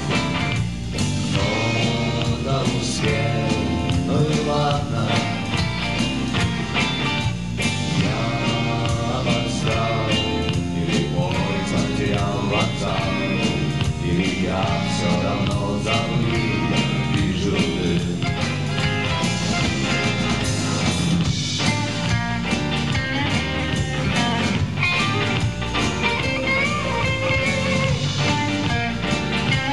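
Live rock band playing: electric guitars over bass and drums, with a male voice singing in places.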